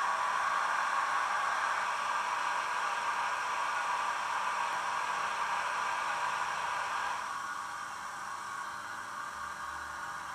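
Recorded air-compressor sound of an SBB Re 460 electric locomotive, played by the Zimo MX645 sound decoder through the small loudspeaker of a Roco model: a steady hissing run that quietens about seven seconds in.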